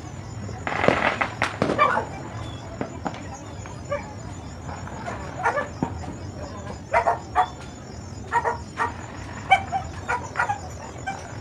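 Dog barking in short runs of barks, with a louder burst of noise about a second in.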